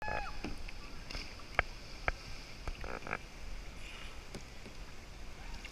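Kayak paddling on calm water: water lapping and splashing against the plastic hull as the paddle dips, with a few sharp knocks about one and a half and two seconds in.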